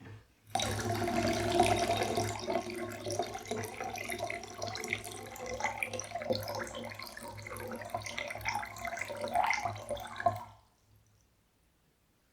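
Water running and splashing close to the microphone. It starts about half a second in and stops abruptly about ten seconds later.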